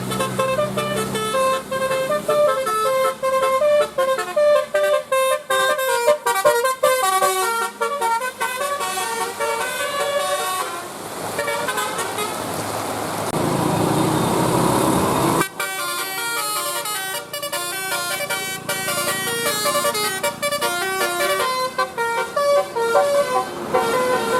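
A bus's telolet basuri musical air horn playing a quick melody of shifting notes. Midway the tune gives way for a few seconds to a rising rush of noise that stops abruptly, then the horn melody resumes.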